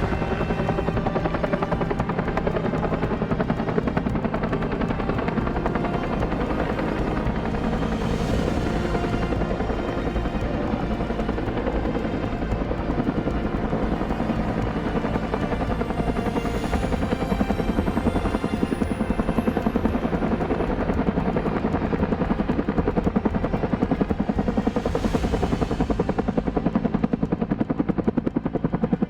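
Firefighting helicopter, its rotor chopping in a fast, even rhythm over a steady engine hum, growing a little louder near the end.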